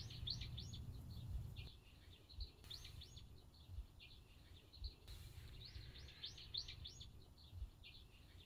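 Faint birdsong: a small bird repeating a quick chirping phrase several times, over a low background rumble with a few soft thumps.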